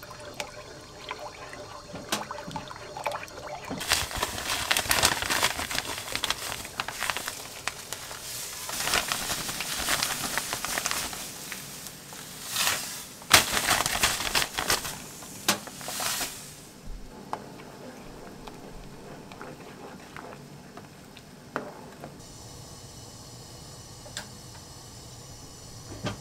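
Granulated sugar poured into a pot of liquid and stirred in with a wooden spoon. It is a loud, noisy stretch with many small clicks from about four seconds in until about sixteen seconds in, and then it goes quiet.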